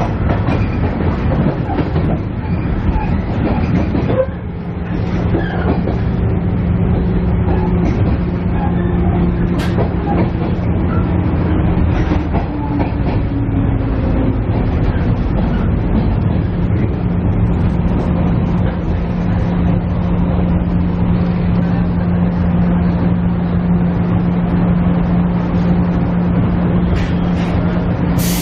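Inside a JR East KiHa E130 diesel railcar under way: the diesel engine drones steadily under the noise of wheels on rail. The sound dips briefly about four seconds in, and a fainter whine then falls slowly in pitch.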